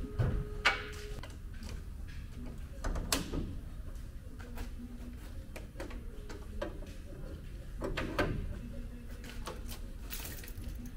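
Clunks and clicks as the hood of a Jeep Wrangler JK is unlatched and raised, then scattered small clicks and knocks of hands working at the grille area, with a few louder knocks about a second in, around three seconds and around eight seconds.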